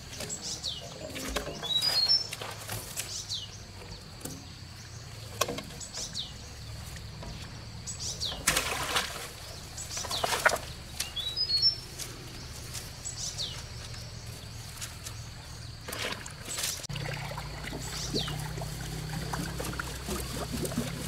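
Bird calls: a short falling whistle repeated every second or two, with a couple of quick rising runs of notes. Water splashes now and then, over a low steady hum.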